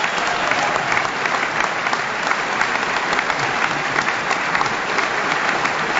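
A large audience applauding steadily, many hands clapping together in a dense, even patter.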